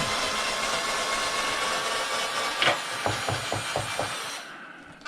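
Power drill-driver running, backing out a long screw: its motor pitch rises as it spins up and then holds steady, with a quick run of about five knocks a little after the middle. It stops shortly before the end.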